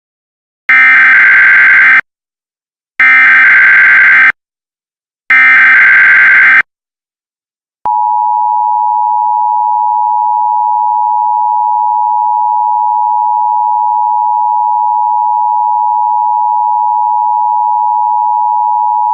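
Emergency Alert System signal: three identical buzzing data bursts of the digital SAME header, then the steady two-tone attention signal, which starts about eight seconds in and is held without a break.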